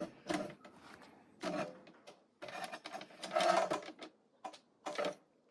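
Irregular clicks, knocks and short rattles of objects being handled and shifted about, busiest in the middle and stopping near the end.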